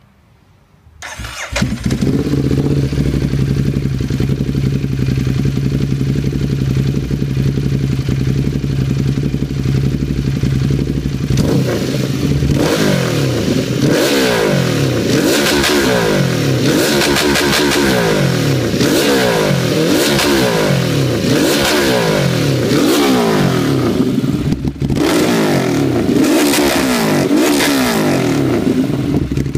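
Ducati Hypermotard 821's 821 cc L-twin engine through a FireTorch carbon slip-on exhaust, started about a second in and idling steadily. From about twelve seconds in it is revved in repeated throttle blips, the revs climbing and dropping again and again, with one brief pause near the end.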